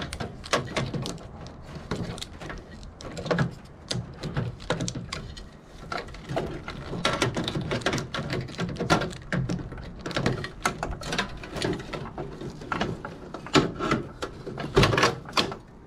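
Hands taking apart an old electrocardiogram machine, pulling out wiring, tubing and plastic and metal parts. Many irregular knocks, clicks and rattles, loudest near the end.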